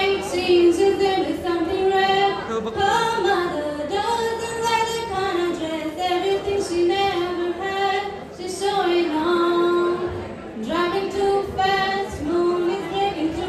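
Young woman's voice singing a melody into a handheld microphone over a PA, in phrases of held notes with short breaks between them.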